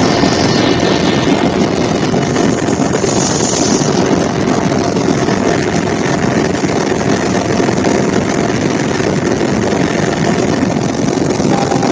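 Steady, loud engine and airflow noise inside the cabin of a small aircraft in flight.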